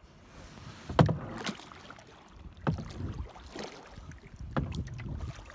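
Kayak paddle worked one-handed: the blade dips and splashes into the water with a sudden splash or knock about once a second, over a faint wash of lapping water.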